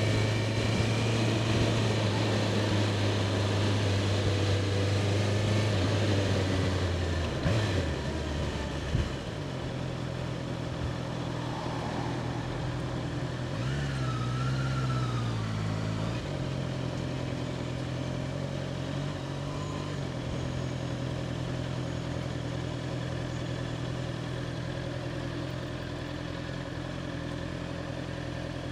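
Honda CBR650R's inline-four engine running steadily. About eight seconds in there are a couple of sharp clicks, the engine note drops and it gets quieter, and it carries on at a lower, steady note. Near the middle the pitch briefly rises and falls.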